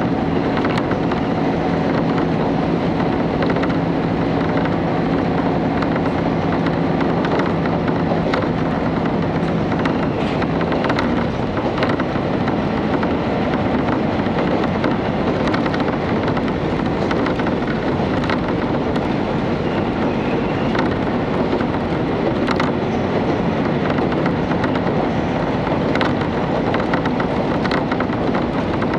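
Running noise inside a KiHa 31 diesel railcar at speed: a steady rumble of the diesel engine and wheels on the rails, with scattered short clicks. A low steady hum in the noise fades about ten seconds in.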